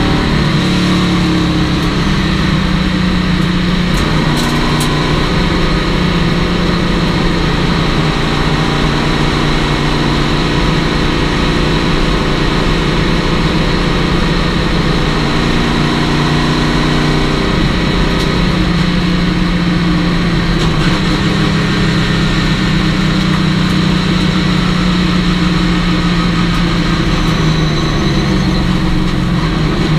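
Chevrolet stock car's V8 engine running hard at racing speed, heard from inside the stripped-out cockpit; the engine note is loud and steady, dipping and rising a few times.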